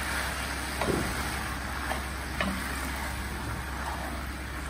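A plastic spatula stirring and tossing stir-fried rice noodles and vegetables in a wok, with a few soft taps of the spatula against the pan over a steady background hiss.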